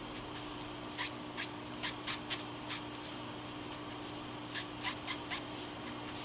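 Tombow brush-tip marker strokes on cardstock while colouring in, with a string of short, scratchy, irregular strokes about two a second. A faint steady hum runs underneath.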